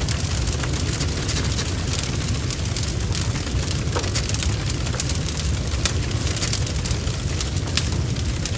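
A large barn fire heard from inside the burning building, burning with a steady low rumble and dense, irregular crackling and spitting.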